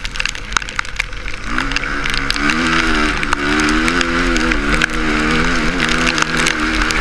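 Suzuki RM-Z450 single-cylinder four-stroke motocross engine heard from an onboard camera. The throttle is off briefly, then opens about a second and a half in, and the engine revs rise and fall repeatedly. Scattered sharp clicks and knocks sound over the engine.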